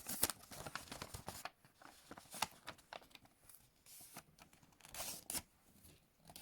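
A Post-it note being folded and creased by hand: faint paper crinkling and rustling with scattered small crackles.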